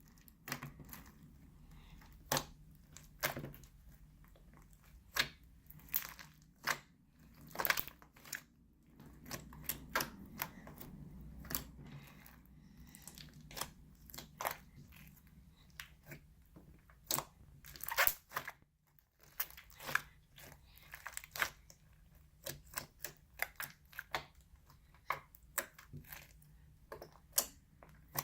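Bead-filled crunchy slime being squeezed and kneaded by hand, giving irregular sharp crackles and pops, in quick clusters with short pauses between.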